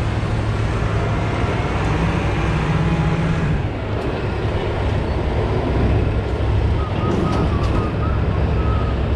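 Wheel loader's diesel engine running steadily and loudly as the machine lifts a car on its forks and drives off with it.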